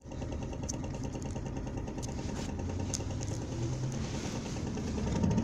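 Isuzu Erga city bus's four-cylinder diesel engine idling steadily, with a few faint clicks.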